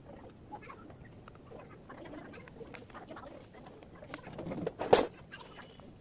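Handling sounds as a plastic watering can is picked up and brought over a seed tray, with one sharp knock about five seconds in. Birds call faintly in the background.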